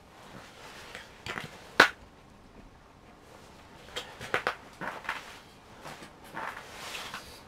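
Rustling of a heavy insulated suit and boots shifting on ice as a person gets up and sits back down, with a sharp knock about two seconds in and a cluster of short clicks and knocks around the middle.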